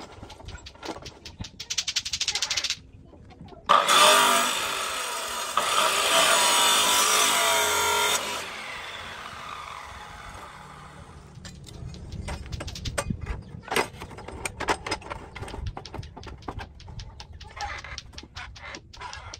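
Abrasive chop saw switched on about four seconds in, running with a wavering whine for about four seconds, then switched off and winding down. Before and after it, clicks and knocks as the steel bar is clamped in the saw's vise.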